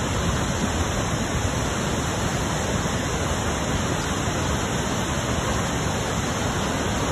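Muddy floodwater pouring over the collapsed edge of a washed-out road like a waterfall: a steady, unbroken rush. The creek has overtopped the road and is eroding it away.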